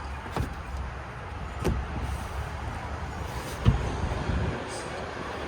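Low, steady background rumble with three light knocks, the loudest a dull thump about three and a half seconds in.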